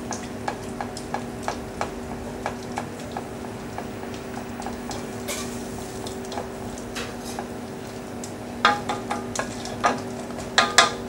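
Wooden spoon stirring a thick roux-and-chicken-stock paste in a stainless steel saucepan, tapping and scraping against the pan at about three strokes a second, then more sparsely, with a run of louder knocks near the end. This is the stage of working stock into a blond roux to bring it back to a smooth paste for a velouté. A steady low hum runs underneath.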